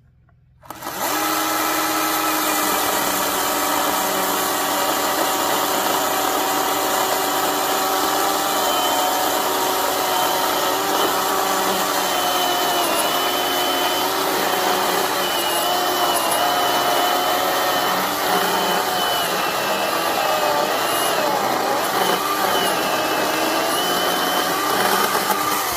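Ryobi 18V ONE+ HP brushless 10-inch cordless chainsaw starting up about a second in and cutting steadily through a log. Its motor whine drops in pitch partway through and then wavers as the chain works under load in the wood.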